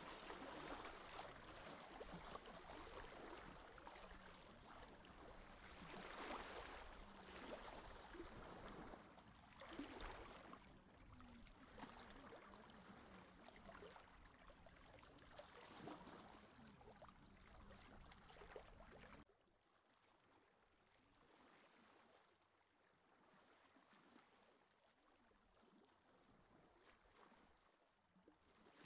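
Faint sea water lapping in small waves, swelling and ebbing every few seconds. About two-thirds of the way through it drops suddenly to a much fainter, softer wash.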